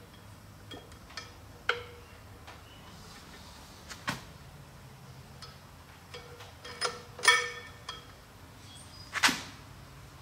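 Steel parts of a 6-disc wet clutch clinking and tapping together as the clutch pack is handled and assembled: scattered metallic clicks, some ringing briefly, the loudest about seven and nine seconds in.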